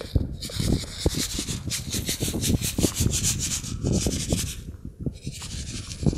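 Gritty scratching and rustling of Harrells granular fertilizer being scattered and rubbed by hand over the gravelly soil surface of a bonsai pot. The scratches come irregularly and ease off about five seconds in.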